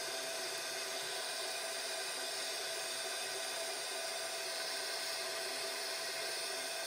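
Steady hiss and whir of a small forced-air gas melting furnace, its flame blown by an electric air blower, with a faint steady whine running through it.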